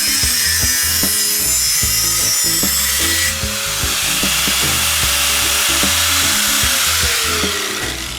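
Power tool working wood, a steady hiss that changes character about three seconds in, its motor pitch dropping as it winds down near the end. Background music with a steady beat plays throughout.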